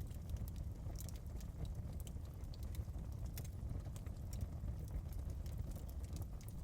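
Wood fire burning in a fireplace: a low steady rumble of flames with irregular sharp crackles and pops.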